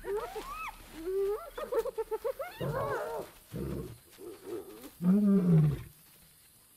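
Spotted hyenas whooping and giggling in rising and wavering calls over the first three seconds, then a male lion roaring in deep calls, loudest about five seconds in, to drive the scavengers off the kill.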